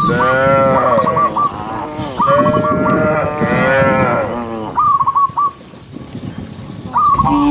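Cattle mooing: several long, overlapping moos through the first half, then a quieter stretch before another moo starts near the end. A quick, high chirping figure repeats on and off alongside the moos.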